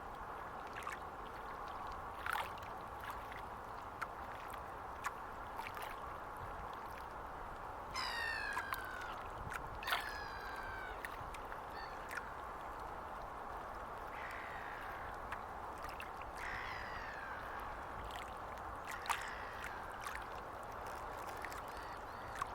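Small estuary waves lapping steadily at the shore, with scattered sharp ticks. A bird gives two loud calls that fall in pitch about a third of the way through, then two fainter ones a few seconds later.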